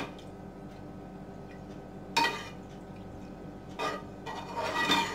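Metal spoon stirring tur dal and water in an aluminium pot, scraping and clinking against the pot in a few separate strokes, the busiest near the end.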